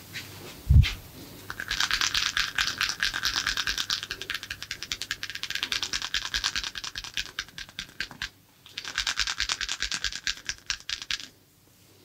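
Rapid, rhythmic scratching strokes of a massage, in two long runs with a short break about eight seconds in. A single low thump comes just before them.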